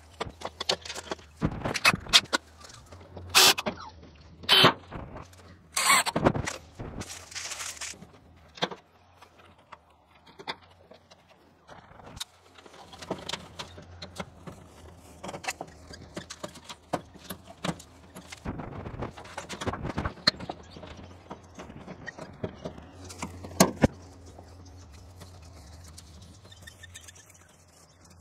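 Hand-work noises of wiring an outdoor power point: sharp clicks and knocks, loudest in the first several seconds, then quieter snips and rattles as wires are cut and stripped with pliers.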